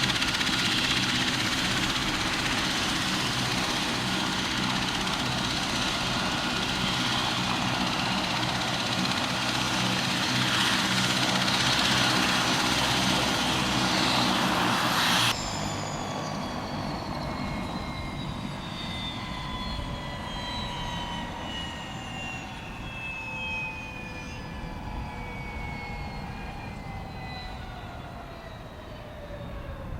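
Leonardo AW139 twin-turbine helicopter running on the ground, with steady turbine and rotor noise. Halfway through the sound drops abruptly, and the turbine whines then fall steadily in pitch as the engines wind down.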